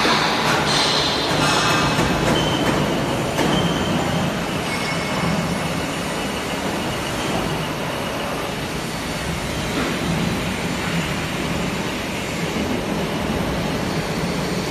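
Large CNC horizontal lathe running as it turns a big disc-shaped workpiece: a steady mechanical hum with a thin high whine that comes and goes. It is louder and clattery in the first two seconds.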